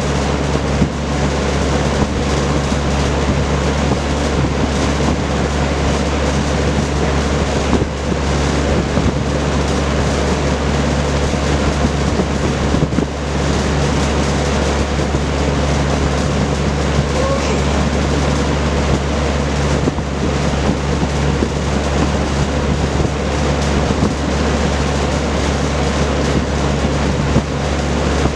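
Vintage Kenmore Roll-A-Matic 20-inch reversible box fan running steadily: an even rush of air from its four-blade propeller over a low, steady motor hum.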